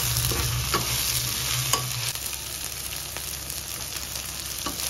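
Pork and bamboo shoots sizzling in oil in a nonstick pot while a spatula stirs them, with a few light taps and scrapes of the spatula against the pan.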